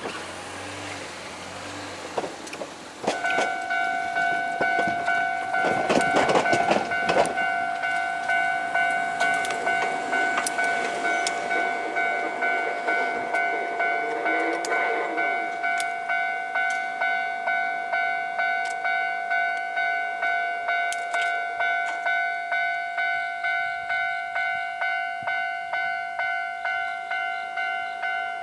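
Japanese railway level-crossing warning bell starts about three seconds in and keeps ringing a steady electronic tone that repeats a little faster than once a second, the signal that a train is approaching. Louder train and rail noise swells briefly around five to eight seconds in.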